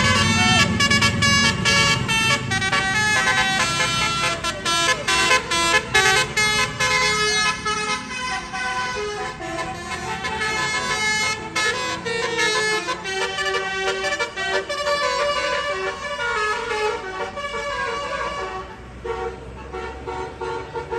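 Tour bus's basuri musical horn playing a tune as a long run of short notes stepping up and down. The bus's engine rumbles under it for the first couple of seconds, then fades.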